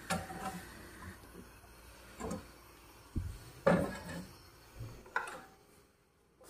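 Scattered knocks and clatters of cookware and utensils being handled at a gas stove, about half a dozen in all.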